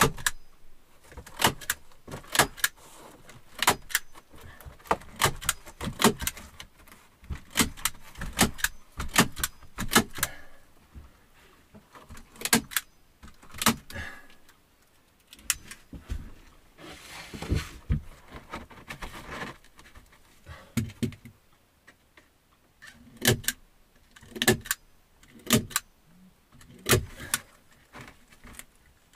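Staple gun firing again and again, sharp clacks as staples are driven to fix birch-bark sheets to a ceiling. There is a sparser stretch in the middle with fewer shots.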